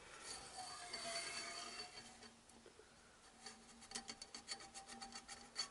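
Faint metal scraping as a Yamaha XJ900S fork spring is drawn up out of the oily fork tube. It is followed, after a short lull, by a run of quick, irregular light ticks as the spring comes free.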